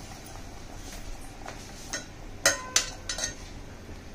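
A steel ladle stirring soup in a metal pressure cooker pot, clinking against the pot several times, the loudest two knocks about two and a half seconds in, one with a short metallic ring.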